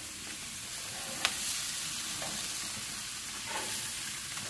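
Hamburger patties and ribs sizzling on the grate of a gas grill, a steady hiss, with one sharp click about a second in.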